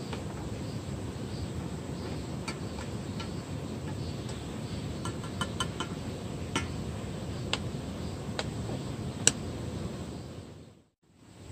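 Wooden spoon stirring coffee in a stainless steel sierra cup, tapping and clicking lightly against the metal a dozen or so times, one tap louder than the rest, over a steady low background rumble. The sound fades out briefly near the end.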